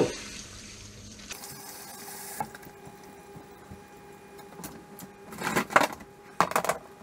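Kitchen rummaging while fetching an ingredient: a short hiss about a second in with a faint steady hum after it, then rustling and several sharp clatters of plastic containers, loudest near the end.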